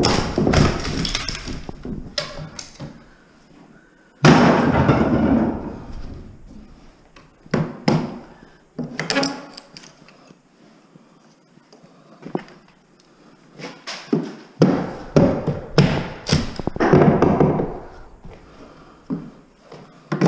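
Hammer and pry bar knocking and prying maple stair spindles and rail pieces loose: an irregular run of heavy wooden thuds and knocks, the loudest about four seconds in.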